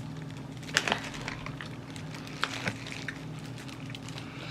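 Biting into and chewing a Korean fried chicken wing: a few sharp crunching clicks about a second in and again about two and a half seconds in, with soft wet chewing between them, over a steady low hum.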